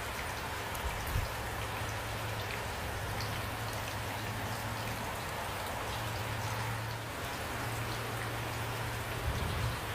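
Steady rain falling, with individual drops ticking on a surface. A low steady hum runs underneath, and two soft low thuds come about a second in and near the end.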